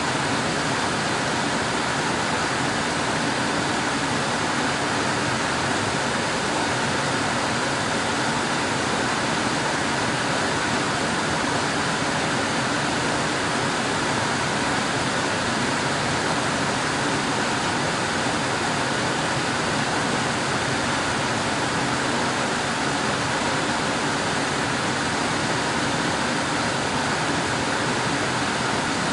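Air conditioner running steadily: an even, unchanging rush of blowing air with a faint hum beneath it.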